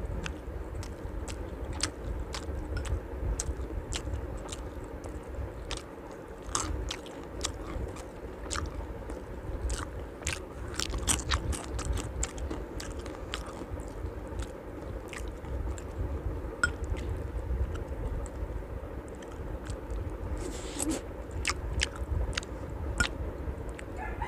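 A person chewing food close to the microphone, with many short sharp clicks and a metal spoon scraping against glass dishes now and then, over a steady low hum.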